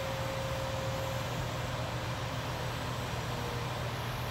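Diesel engine of a large mobile crane running steadily under load as it holds and lowers a steam locomotive, with a faint whine that fades out in the first second or two.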